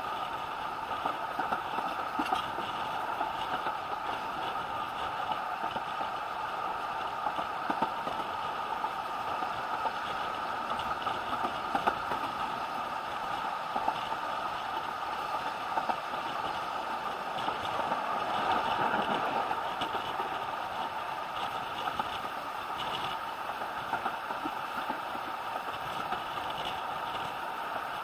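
Running noise of a narrow-gauge steam railway carriage heard from inside: a steady rumble and rattle of the train on the track, with sharp clicks every few seconds. The noise swells for a couple of seconds about two-thirds of the way through.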